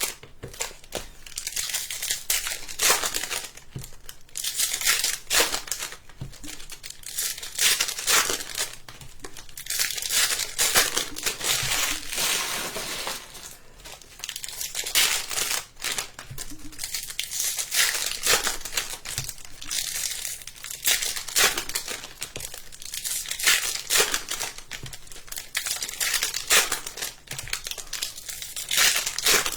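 Crinkling of Bowman hobby card pack wrappers as packs are torn open and handled, with irregular crackles and tearing.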